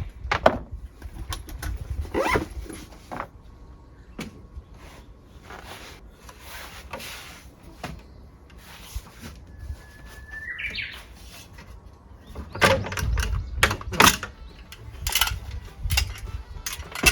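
A bird chirps once, about two-thirds of the way through, over scattered knocks and clatter, with a dense run of sharp clacks near the end and a low rumble underneath.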